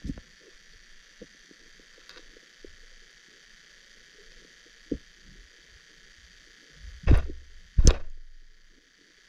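Underwater creek audio from a GoPro Hero8 sealed in its housing: a steady hiss with scattered soft low knocks. Near the end come two loud sharp thumps about a second apart.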